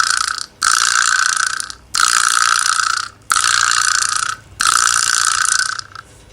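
Fictional Emergency Alert System alarm: a noisy buzzing tone sounding in repeated bursts of about a second each, roughly one every 1.3 seconds, stopping about six seconds in.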